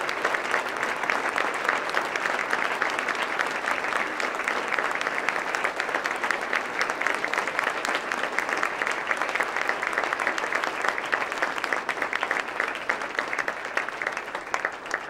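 Audience applauding steadily, a room full of hands clapping, the clapping thinning out near the end.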